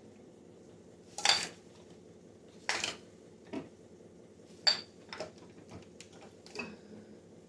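Glass jars and bottles clinking and knocking against each other and the shelf as they are moved around in a fridge, about six sharp knocks, a few of them ringing briefly.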